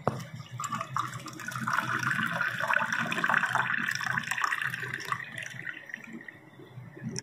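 Apple juice pouring in a stream into a glass, splashing as the glass fills. It grows louder over the first few seconds and tapers off near the end.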